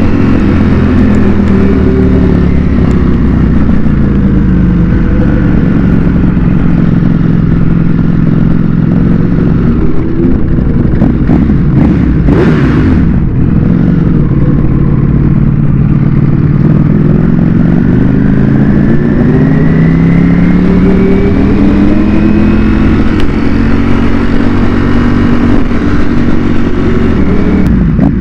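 Ducati Panigale V4 S superbike with a Termignoni exhaust, ridden in city traffic: a loud V4 engine note whose pitch falls and holds as the bike rolls off, then climbs and drops again as the rider opens the throttle and backs off. There is a brief whoosh of noise about twelve seconds in.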